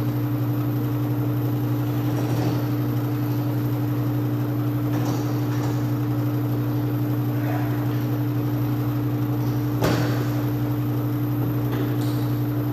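A steady low machine hum with a constant tone in it, under a few light clicks of lever lock parts being handled, the sharpest about ten seconds in.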